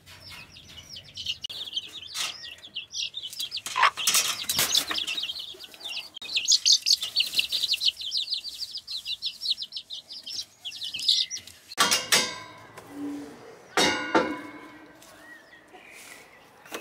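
Chicks peeping rapidly and continuously in high, thin notes for about eleven seconds. Then, about twelve and fourteen seconds in, two sharp metallic clanks as the latch of a galvanised steel-tube gate is worked.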